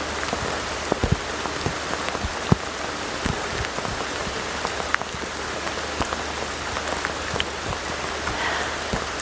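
Heavy rain falling steadily, with scattered sharp ticks of individual drops striking close by.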